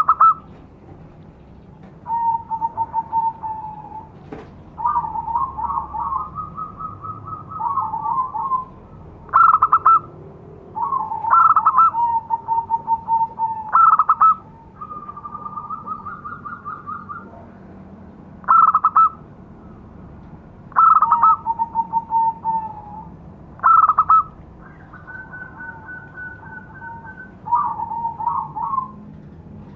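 Zebra dove (perkutut) giving its lure call over and over: phrases of quick, rattling coo notes that switch between a higher and a lower pitch, broken by short, louder single coos and brief pauses.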